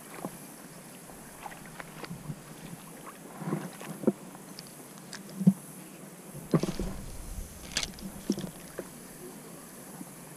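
Irregular knocks and clicks from a spinning rod and reel being handled close to a head-mounted camera, a dozen or so scattered over a faint steady hiss, the sharpest a little past the middle.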